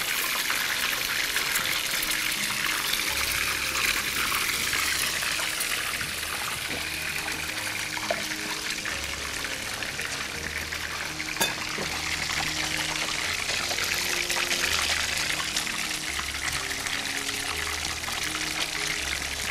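Kellaj pastries sizzling steadily as they fry in hot oil in a frying pan, with a few sharp pops.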